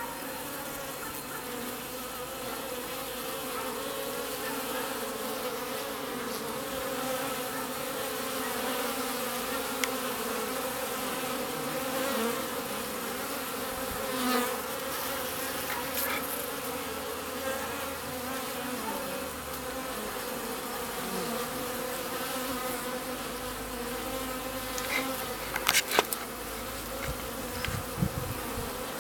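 Many honeybees buzzing at a hive entrance, with wasps among them: a steady hum made of several pitches at once. A few sharp ticks come near the end.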